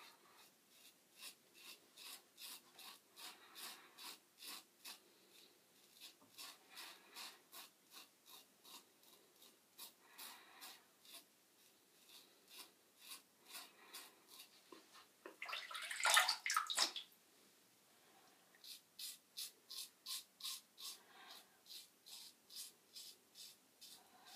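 A Merkur Slant safety razor with a Treet carbon steel blade scraping through stubble in short strokes, about two or three a second, in runs with brief pauses. About fifteen seconds in, a short rush of running water.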